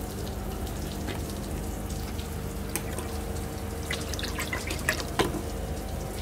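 Liquid teak stain remover poured in a thin stream from a carton into a plastic bucket of water, trickling and dripping, with a few light clicks from handling the carton. A steady low hum runs underneath.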